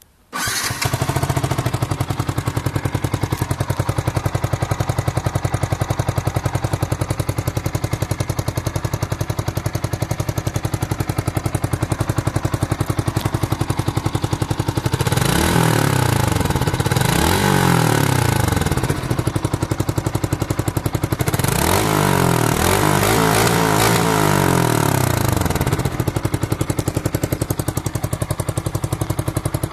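Yamaha YZF-R125's single-cylinder four-stroke engine, on its stock exhaust, starting up about half a second in and idling. About halfway it is revved twice, and a little later it is revved several times in a row before settling back to idle.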